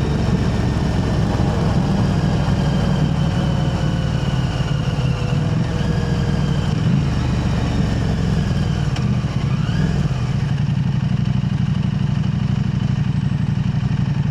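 KTM 890 Adventure R's parallel-twin engine running through an Arrow Race-Tech aftermarket slip-on exhaust while the bike is ridden, a steady exhaust note with most of its weight low down.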